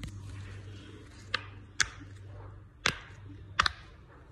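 Silicone pop-it fidget toy being pressed, its bubbles popping with sharp clicks: five pops at uneven intervals, the last two in quick succession.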